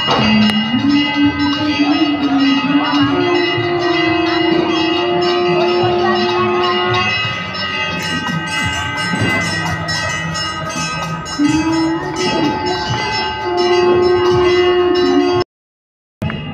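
Bells ringing continuously over rhythmic hand-clapping from a crowd. A long held lower tone steps up in pitch about a second in and again near the end. The sound drops out briefly near the end.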